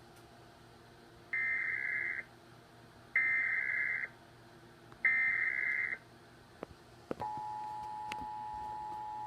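Emergency Alert System header broadcast for a national test: three bursts of digital data tones, each just under a second and about a second apart. About seven seconds in, the steady two-tone attention signal begins, two tones sounding together.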